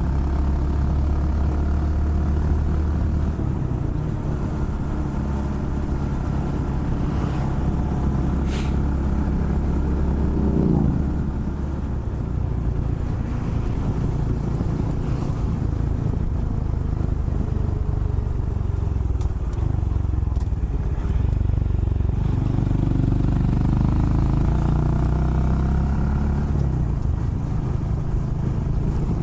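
Honda Monkey's small single-cylinder four-stroke engine running steadily while riding. Its note drops sharply about eleven seconds in, then holds steady again.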